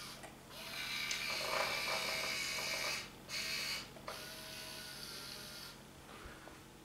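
Small electric motor and plastic gearbox of a toy remote-control wheel loader whirring in a steady whine. It runs in two stretches with a short pause about three seconds in, then goes on more quietly.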